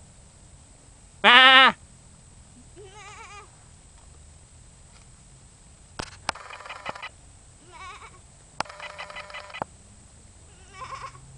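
Baby goats bleating: one loud, wavering bleat about a second in, then several fainter bleats through the rest, with a few sharp clicks between them.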